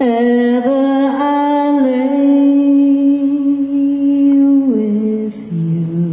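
A woman singing unaccompanied into a microphone. She holds one long note for about four and a half seconds, then steps down to a lower note and holds it.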